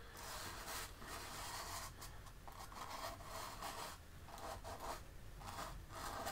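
Paintbrush stroking acrylic paint onto a canvas on an easel: a faint run of short brush strokes, about ten of them, one every half second or so.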